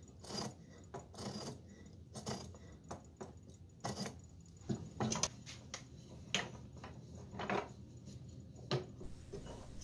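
Irregular light clicks, taps and scrapes as a double-tooth mortise gauge is handled against wood, set to the old plane tote and marked onto a block of ash, about once or twice a second.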